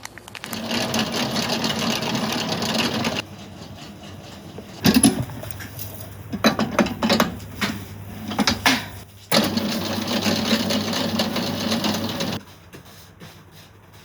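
Food-preparation sounds in edited segments: a steady mechanical whirring in two stretches, with a run of sharp clatters and knocks of utensils between them.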